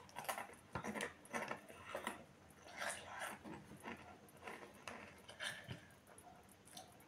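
Faint, irregular crunching of Takis rolled corn tortilla chips being chewed, about two crackles a second, with the foil chip bag crinkling as a hand reaches into it.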